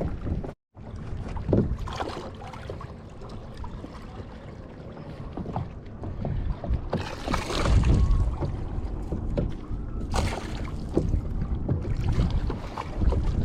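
Water lapping and sloshing against a fishing kayak's hull, with wind on the microphone; the wash swells louder twice in the second half. The sound cuts out completely for a moment about half a second in.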